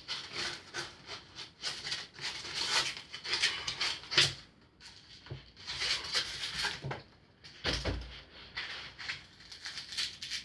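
Foam packing pieces being pulled and slid out of a cardboard box: irregular scraping, rubbing and rustling, with a dull thump about eight seconds in.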